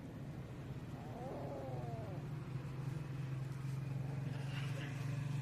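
A cat meows once, a drawn-out call that rises and falls in pitch, about a second in, over a steady low hum that slowly grows louder.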